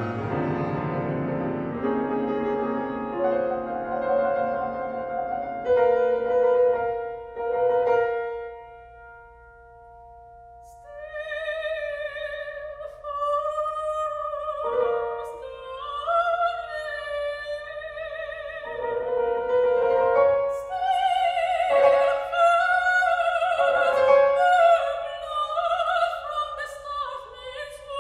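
Chamber music for soprano, horn and piano: piano chords ring out under a held note. About eleven seconds in, an operatic soprano voice with wide vibrato enters, accompanied by separate piano chords.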